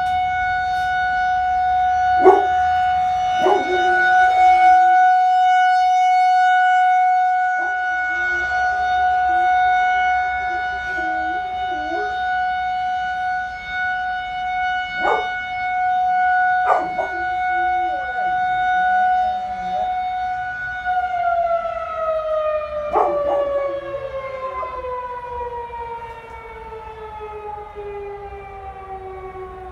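Tornado warning siren sounding a steady high tone that slowly winds down in pitch over the last several seconds. A dog howls along with it in wavering, pitch-bending howls with pauses between them. A few short sharp noises cut in now and then.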